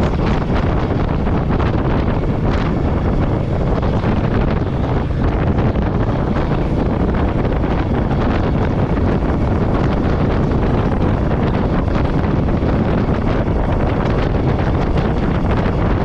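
Steady wind noise on the microphone of a moving motorcycle, over the even running of a Royal Enfield Meteor 350's single-cylinder engine.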